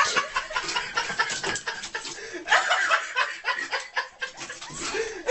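People chuckling and laughing while a kitten rummages in a plastic bag, its crinkling crackles heard through the first couple of seconds.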